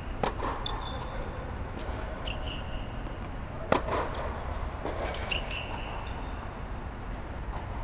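Tennis rally on an indoor hard court: sharp pops of racket strings hitting the ball, the loudest about four seconds in, with short high squeaks of shoes on the court surface and a steady low hum underneath.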